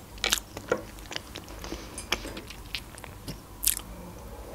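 Close-up mouth sounds of a person chewing chocolate cake: short wet smacks and clicks. A louder sip from a mug of tea comes near the end.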